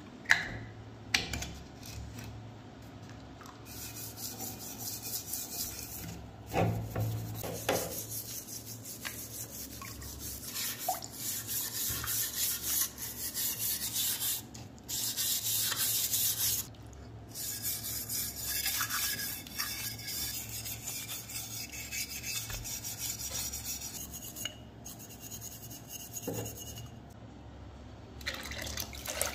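A stiff-bristled brush scrubbing rust off the steel receiver and barrel of an AK-47, in spells of rapid strokes broken by short pauses. Near the end, water is poured over the part.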